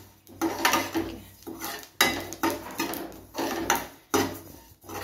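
Steel spatula scraping and stirring sesame seeds around a non-stick kadhai as they dry-roast, the seeds swishing with each stroke. It makes a quick, uneven run of scrapes, roughly two a second.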